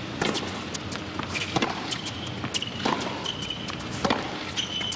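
Tennis ball struck back and forth with racquets in a baseline rally on a hard court: four sharp hits about 1.3 seconds apart, with a few short high squeaks between them.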